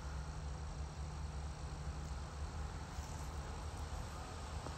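Crickets chirping steadily in the background, over a constant low rumble.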